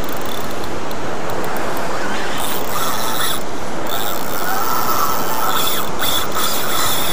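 Shimano Saragosa spinning reel working under the strain of a hooked shark, its mechanism running loud and steady with no break.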